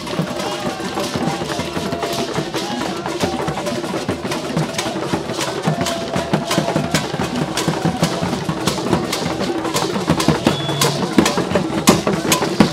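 Traditional hand drums and percussion beating in a dense rhythm, with voices singing along. The strikes grow louder near the end.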